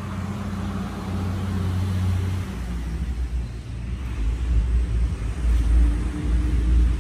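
Road traffic: a motor vehicle's engine hum, steady at first, then turning about two and a half seconds in into a deeper, uneven rumble that grows louder toward the end.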